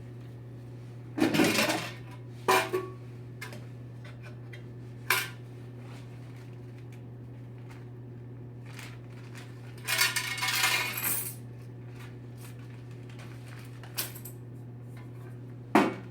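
Coins clinking and clattering in several short bursts, the loudest about a second in and around ten seconds in, as the week's coin collection is taken out of a vending machine. A steady low hum runs underneath.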